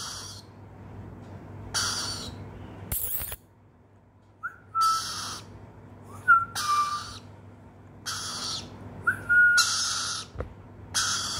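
Swainson's lorikeet chick giving short, harsh raspy calls, about six of them spaced a second or two apart, in answer to being called.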